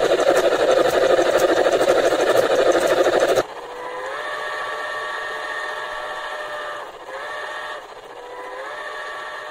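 LGB Shay geared steam locomotive model running fast on a roller stand, a loud steady mechanical clatter of motor and gears with fast regular clicks, which cuts off suddenly about three and a half seconds in. Then its steam whistle sounds three times, each blast sliding up in pitch before holding: a long blast, a short one, and a third that runs on.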